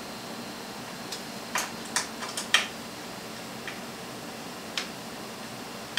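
Hex key clicking against screws and the metal frame of a 3D printer as its side screws are loosened. The sharp clicks come in a quick cluster between about one and three seconds in, followed by two single clicks.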